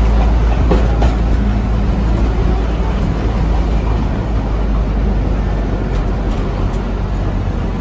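Narrow-gauge train rolling along the track, heard from inside an open-windowed passenger car: a steady rumble with a few faint clicks near the end.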